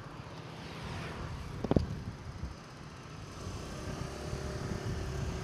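Road traffic running past, a steady low rumble with a brief sharp sound a little under two seconds in.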